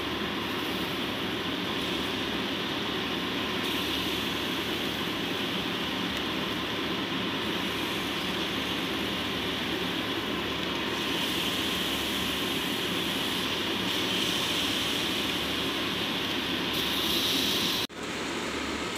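Whole boiled eggs frying in hot oil with pepper and turmeric in a shallow pan: a steady sizzle that grows a little louder in the second half, with a brief dropout near the end.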